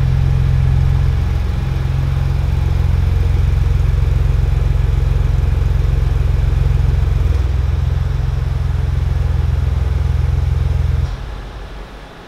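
Ford Bronco's engine idling steadily, then cutting off near the end as it is switched off.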